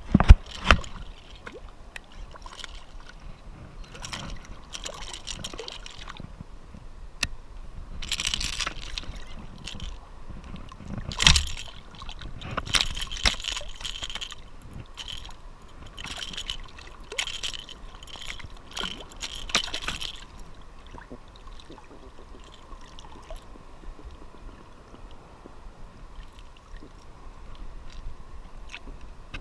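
Water splashing and sloshing in irregular bursts as a hooked speckled trout thrashes at the surface and is lifted and handled.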